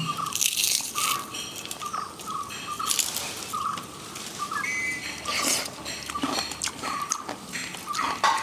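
A bird repeats a short, high call note about twice a second in the background. Close by come several sharp crunches and clicks as crunchy fried urad dal and green chilli sendige is eaten by hand from a steel plate.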